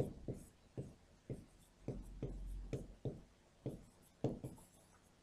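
Marker pen writing on a whiteboard: a run of short, faint strokes, about two a second, as words are written out by hand.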